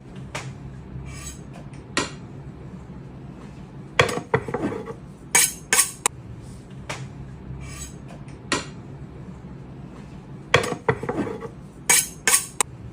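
A knife blade being sharpened, metal scraped in short, irregular strokes, some coming in quick runs of two or three, over a steady low hum.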